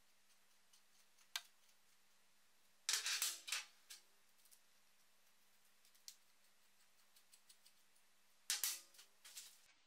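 Small metal parts clinking on a steel workbench: a hex key and machined metal clamp blocks being handled and set down, with faint ticks as the key turns the cap screws. Two louder bursts of clinks stand out, about three seconds in and again near the end.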